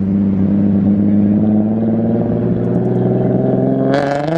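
Nissan 350Z V6 engine running through its Tomei exhaust: a steady, loud note that rises a little near the end, with a short noisy burst about four seconds in. The turbo whistle fitted to the tailpipe tip adds no audible whistle; the exhaust drowns it out, or it was fitted wrong.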